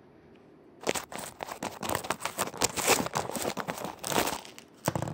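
Cat pushing and pawing at a tube right against the microphone: a dense run of scraping and crinkling noises that starts about a second in and lasts about three and a half seconds, with one more short burst near the end.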